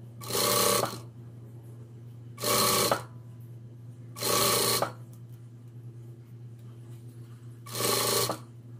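Electric sewing machine stitching satin bias binding onto tulle in four short runs of about half a second to a second each, with pauses between as the fabric is straightened, over a steady low hum.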